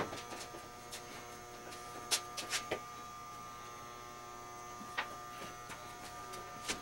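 Steady electrical hum made of several held tones, with a few light clicks scattered through it.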